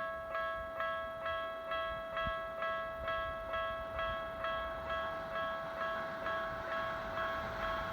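Japanese railway level-crossing warning signal ringing its electronic 'kan-kan' bell, an even ding-ding repeating about twice a second over a steady underlying tone, warning that a train is coming.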